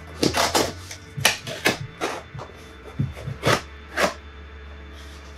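A small blade slicing through packing tape on a cardboard shipping box, with the cardboard being handled: about ten short, scratchy rips and scrapes spread over several seconds.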